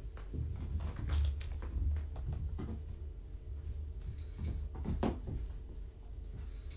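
Kittens running and wrestling: scattered light knocks, thumps and scuffles, over a steady low hum.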